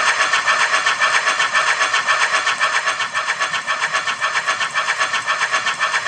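Zimo digital sound decoder with a Digitrains sound project in a Bachmann 56xx class model tank locomotive, playing a steady steam exhaust beat at about four to five chuffs a second through the model's small speaker.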